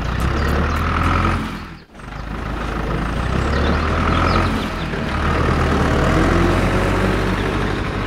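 A vehicle engine running steadily with a low hum. The sound drops out briefly about two seconds in and then resumes.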